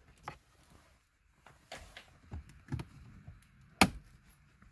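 Hard dash plastic being broken out by hand: a series of sharp cracks and knocks, about six spread over a few seconds, the loudest near the end.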